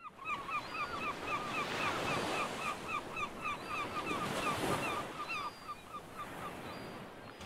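Surf washing onto a beach under a bird calling in a rapid series of short, repeated notes, about four a second, which trail off about five and a half seconds in.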